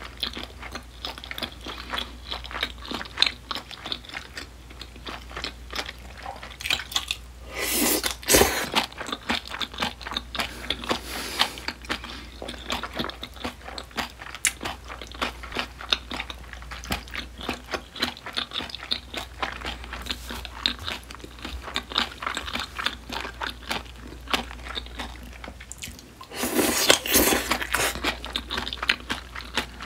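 Close-miked mouth chewing crisp seasoned pickled radish strips: a steady run of rapid wet crunches. Two louder, denser stretches of crunching come about eight seconds in and again near the end.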